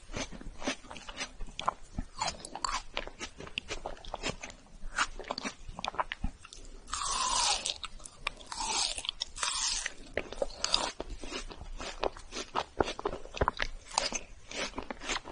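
Close-miked crunching and chewing of a chocolate-coated ice cream bar: a steady run of crisp cracks from the chocolate shell. A louder, longer stretch of crackling comes from about seven to eleven seconds in, as a fresh bite is taken.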